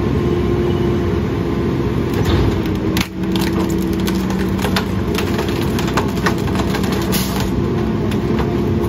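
Mack LE rear-loader garbage truck's engine and hydraulic packer running with a steady hum while the packer blade compacts tree branches, the wood giving off a run of sharp cracks and snaps. The hum dips briefly about three seconds in, and the cracking comes mostly after that.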